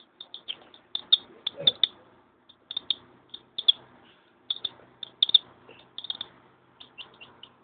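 A baby chicken (chick) peeping over and over: short, high peeps in quick, irregular runs of several a second.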